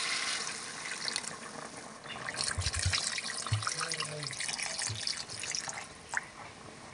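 Water poured in a stream into a metal kadai of browned chicken and potato masala, splashing steadily and thinning out near the end. This is the water going in to turn the fried masala into the curry's gravy. A few soft low thuds come in the middle.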